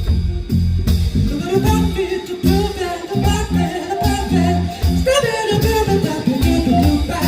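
Live band music with guitar and bass, and wordless scat-style singing over the accompaniment.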